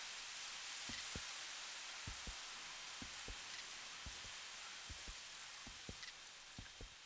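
Slow heartbeat: a low double thump about once a second, seven beats in all, over a steady hiss.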